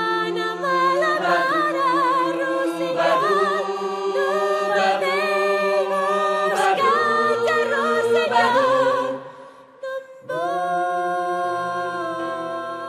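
Wordless a cappella singing, the voices wavering and gliding between notes. Just before ten seconds it breaks off briefly, then a long steady chord is held.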